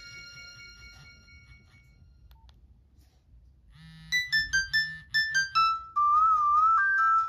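Nokia X1 phone ringtones. The ringing tail of one chime-like ringtone fades out over the first two seconds. After a short pause, a new ringtone starts about four seconds in: a fast run of short electronic notes over a pulsing bass, with a wavering held note near the end.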